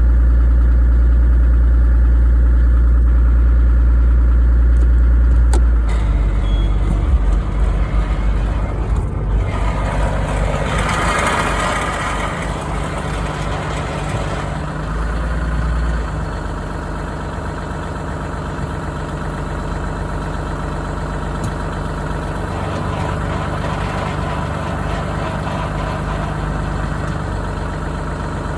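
Car engine idling while the automatic gear selector is moved through its positions, with a loud grinding noise from the transmission, harshest about ten seconds in. The grinding, present in every gear but neutral, is taken for a transmission failure.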